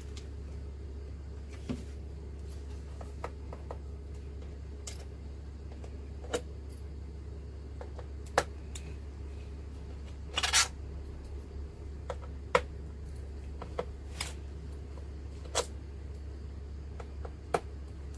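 Scattered sharp clicks and taps of a small screwdriver and tiny screws against a MacBook Pro's aluminium bottom case as the case screws are removed. About a dozen separate ticks come at irregular gaps, with a louder rattling cluster about ten seconds in.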